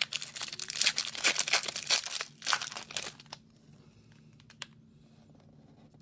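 Foil wrapper of a hockey card pack being torn open and crinkled by hand: a dense, rapid crackling that stops abruptly a little over three seconds in.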